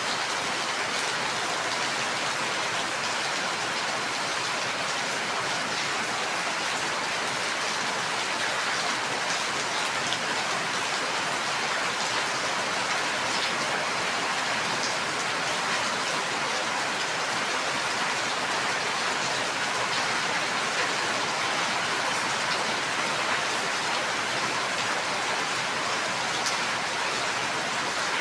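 Steady heavy rain falling, an even hiss with faint scattered drop ticks.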